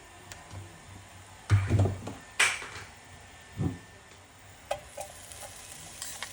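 Cooking pot and metal utensils being handled: a dull knock with clatter, one sharp ringing metallic clink about two and a half seconds in, another dull knock, then a few light taps.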